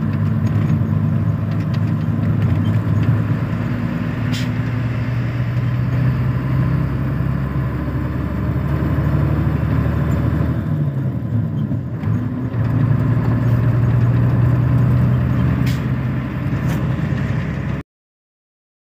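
Vehicle engine running steadily while driving along a highway, with road noise. The engine note dips about ten seconds in and then climbs again, and the sound cuts off suddenly near the end.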